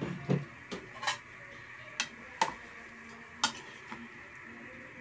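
A cooking utensil clinking against a pot while a chicken asado stew is stirred: about seven sharp, irregular knocks.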